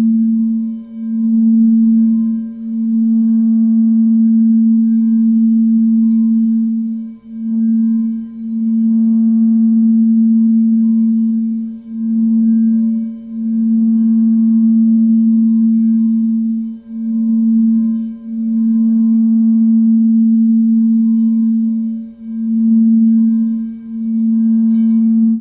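A singing bowl holding one steady low tone, with brief dips in loudness every few seconds, mostly in pairs. The tone cuts off abruptly at the end.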